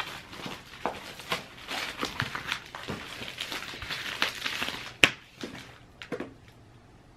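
Packaging and cardboard rustling and crinkling as a freshly opened shipping box is unpacked by hand, with a sharp knock about five seconds in; the handling dies away about a second later.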